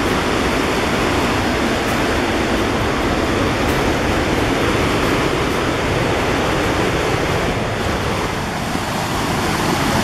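Steady loud rush of a fast mountain river's rapids, an even roar of water with no breaks.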